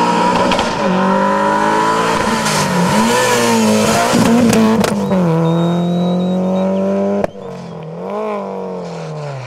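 Rally car engine revving hard, its pitch climbing and dropping with each gear change, with a few sharp cracks along the way. About seven seconds in the sound drops suddenly to a quieter engine note that falls in pitch.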